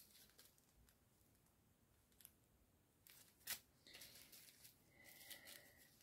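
Faint handling of small plastic zip bags of resin diamond-painting drills: a few soft clicks, a sharper click about three and a half seconds in, then soft crinkling rustle.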